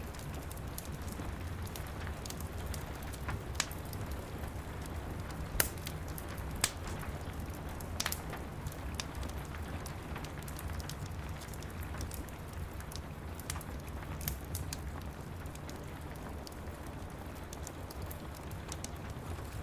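Wood fire crackling in a fireplace, with scattered sharp pops, a few of them louder, over a steady hiss of rain with a low rumble underneath.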